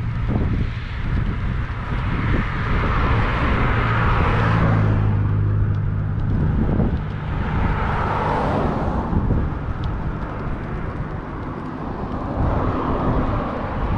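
Cars passing on the adjacent road: three swells of tyre and engine noise that rise and fade, the first carrying a steady low engine hum, over a low rumble of wind on the bicycle-mounted microphone.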